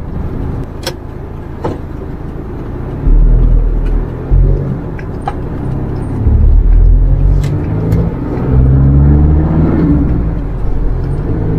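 Minibus engine running under way, pulling harder in surges about three seconds in and again from about six seconds as the vehicle turns around, with the pitch rising near the end. A few sharp clicks.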